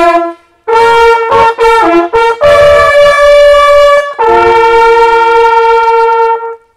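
An ensemble of small coiled German hunting horns blowing a fanfare. After a brief pause, a run of short notes leads to a long held note, then a final long held lower note that cuts off near the end.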